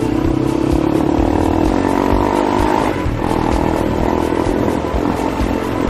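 Crossfire motorcycle's engine running steadily while riding, its note dropping briefly about halfway through, with wind buffeting the microphone.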